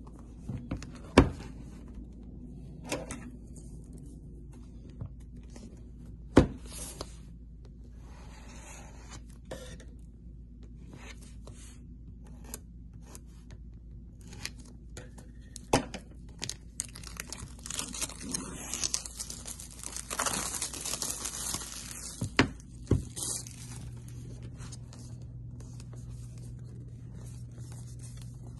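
Cardboard Apple Watch box being handled and opened by hand with scissors: sharp knocks and taps of the box against the table, the loudest about a second in and about six seconds in, with light rustling between. A little past the middle comes a long stretch of tearing and scraping as the seal is cut and torn, lasting about six seconds.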